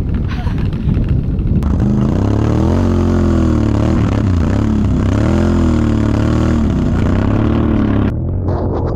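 Can-Am Renegade 1000 XXC ATV's V-twin engine towing a snow tube through snow, its pitch rising and falling with the throttle. About a second and a half in it jumps louder and close up, and near the end it drops away abruptly.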